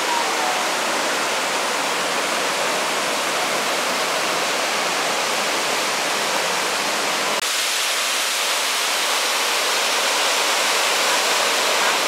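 Waterfall cascades rushing steadily into pools. About seven seconds in the rush shifts abruptly to a brighter, hissier tone.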